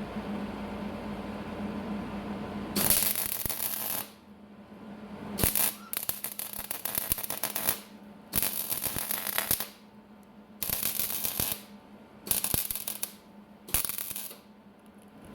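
Electric arc welding on a car bumper: after a steady hum, the arc crackles and sizzles in about seven short runs of a second or so each, with brief pauses between them as the welds are laid in stretches.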